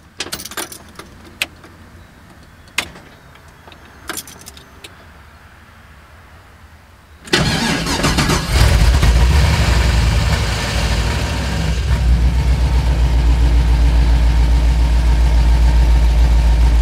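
A few light clicks, then about seven seconds in a 6.0-liter GM V8 truck engine starts with a sudden burst. It runs loud and uneven at first, a weird initial idle on its first start in a while, then settles into a steady, even idle.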